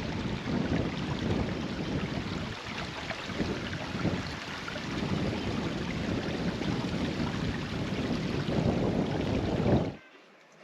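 Wind buffeting the microphone in irregular gusts over a steady wash of water, cutting off abruptly near the end.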